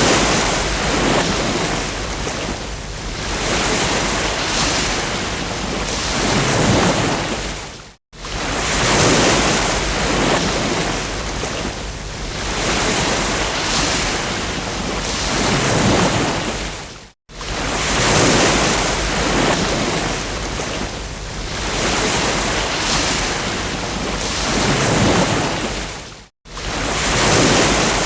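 Ocean surf: waves breaking and washing onto a beach, swelling and ebbing every few seconds. The sound cuts out abruptly for a moment three times, about every nine seconds, like a looped recording.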